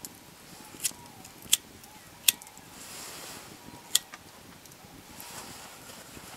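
Wood campfire crackling, with four sharp pops from the burning logs spread through the first four seconds.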